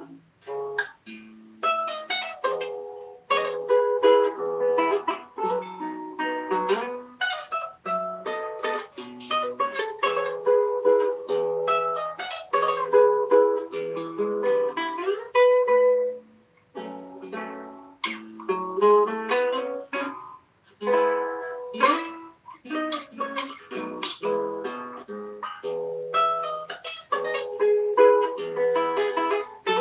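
Nylon-string classical guitar played fingerstyle: a solo piece of plucked melody notes over bass notes and chords, breaking off briefly about half a second, sixteen and twenty seconds in.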